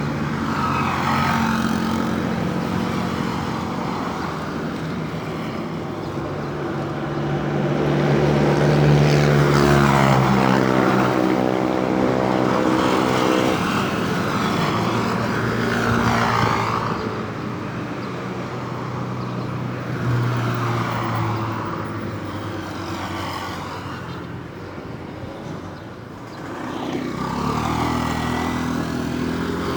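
Road traffic going past: several vehicles pass one after another, each swelling and fading, over a steady low engine drone. A heavier engine note, louder, stands out near the middle.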